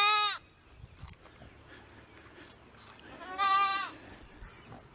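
Goat bleating: the end of one call right at the start, then one full, high bleat about three seconds in, lasting under a second.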